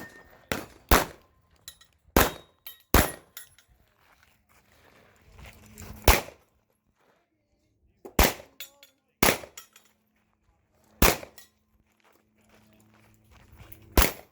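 Pistol shots fired one at a time at an irregular pace, about eleven sharp reports, some in quick pairs and others several seconds apart.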